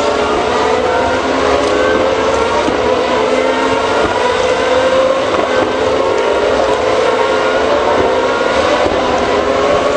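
Engines of single-seater racing cars running on the circuit, heard across the track. Several engine notes overlap and slowly rise and fall in pitch as the cars lap.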